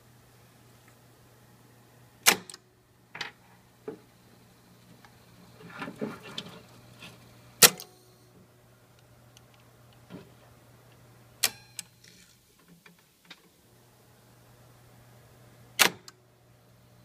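Pinch roller solenoid and arm of a Teac A-4010GSL reel-to-reel deck clacking in and out as the transport is tested. There are four loud clacks spread through, with softer clicks and rattles between them, over a low steady hum that drops out briefly about two-thirds of the way through.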